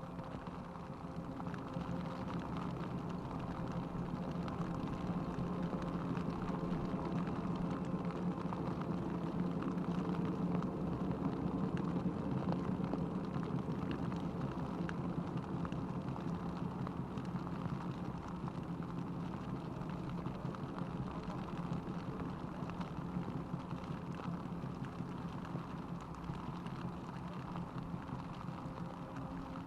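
Steady rain falling, with many small drop ticks over a low, steady rumble. The rain builds over the first few seconds and then holds steady.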